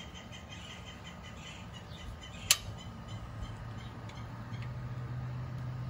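Hand ratchet and socket working a front suspension bolt: faint quick ratchet clicks, with one sharp metallic click about two and a half seconds in.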